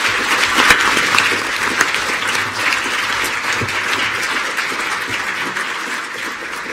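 Audience applauding, many people clapping at once, the applause slowly dying away near the end.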